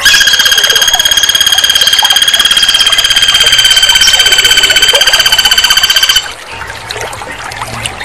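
Flameback woodpecker giving a long, loud, fast, even trilling rattle for about six seconds, which then stops abruptly.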